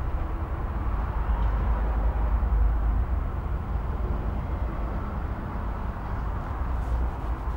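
Steady low rumble and hiss of background room noise, with no distinct events.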